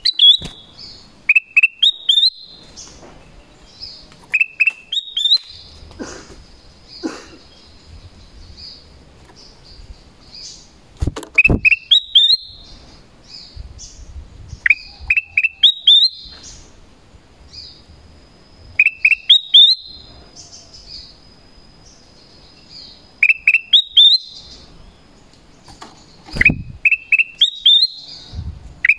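Black-crested bulbul calling: bursts of three or four quick rising whistled notes, a phrase every few seconds.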